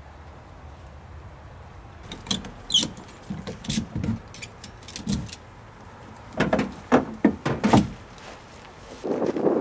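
Plastic wrapping on a Pelican Catch 120 kayak crinkling and the hull knocking against an SUV roof rack as the kayak is handled, in irregular clicks and knocks that cluster most densely about six to eight seconds in.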